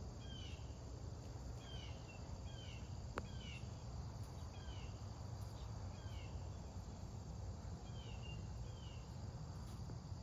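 A bird repeating short, falling chirps about once a second over a steady high insect drone, typical of crickets. A single sharp click comes about three seconds in.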